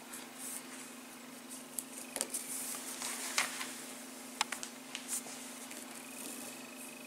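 Soft rustling and small clicks of cotton cord being pulled by hand through the meshes of a knotted macramé net, mostly between about two and five and a half seconds in, over a steady low hum.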